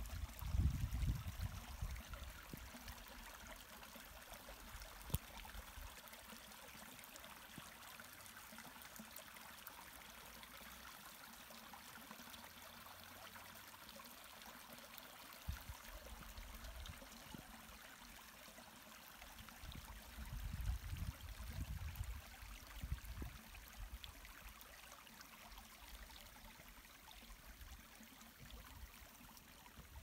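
Small shallow stream trickling and running over stones, a steady even rush of water. Low rumbles come and go near the start and again about two-thirds of the way through.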